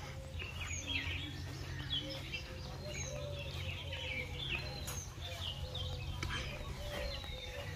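Many birds chirping and calling at once, with a steady low rumble underneath.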